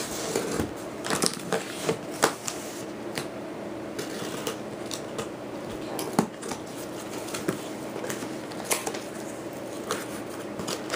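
A cardboard shipping package being opened by hand: irregular rustling, tearing and clicking of cardboard and paper, over a steady low hum.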